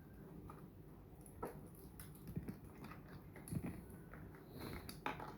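Toy cars and their packaging being handled: faint scattered clicks and a few light knocks.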